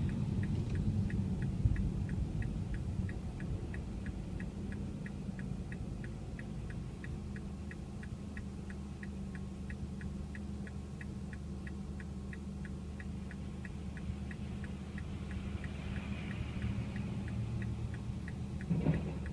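Car turn-signal indicator ticking steadily, about two ticks a second, over the low rumble of the car heard from inside the cabin.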